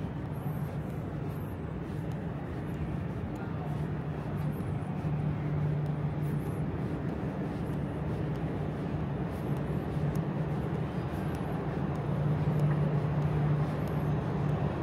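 A steady background drone with a low hum running through it, swelling a little in the middle and near the end, typical of the ambience in a large building.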